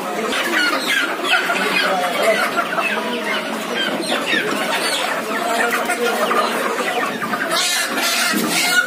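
A crowd of caged chickens clucking and squawking agitatedly as birds are grabbed, with a brief burst of wing-flapping near the end.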